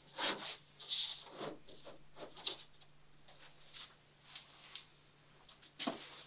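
Light, scattered rubs and soft taps of a thin plywood garboard plank being shifted and settled against the wooden stations of a boat-building mold, with a sharper knock near the end. A faint steady low hum runs underneath.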